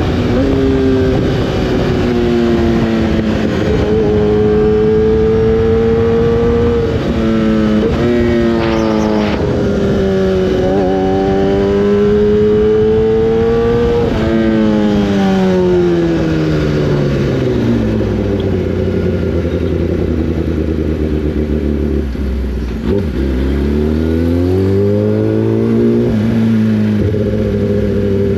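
Inline-four sport-bike engine under way. Its pitch climbs and drops in quick steps as it shifts up through the gears, then falls away to a low steady note as the bike slows, and climbs again under acceleration with another upshift near the end.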